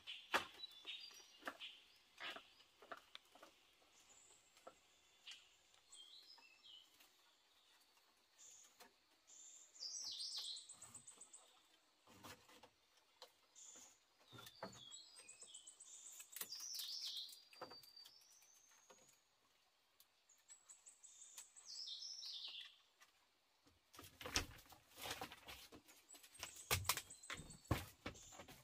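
A songbird sings the same phrase several times, about every six seconds: a quick high trill that drops into a few falling whistled notes. Scattered light taps and knocks run throughout, and a cluster of sharper, louder knocks comes near the end.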